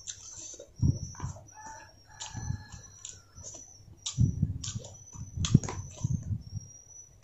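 A person eating fried fish close to the microphone: irregular chewing, crunching and mouth sounds, loudest about a second in and again past the middle. Short, high chirping calls repeat in the background.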